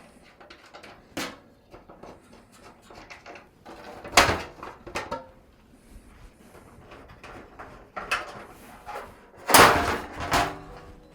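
Panels of a Phanteks Eclipse G400A PC case being taken off by hand: scattered clicks and knocks, with a louder clatter about four seconds in and a longer, louder one near the end.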